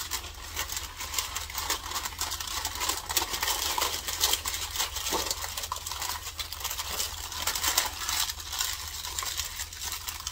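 Sheet of paper crinkling and rustling as it is folded and pressed around a sandwich, with a dense run of small crackles.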